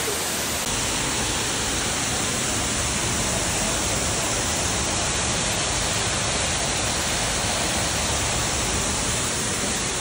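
Waterfall: a steady, even rush of falling water with no change in level.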